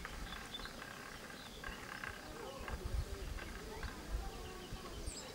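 Faint outdoor ambience: scattered bird chirps and distant voices over a low, uneven rumble.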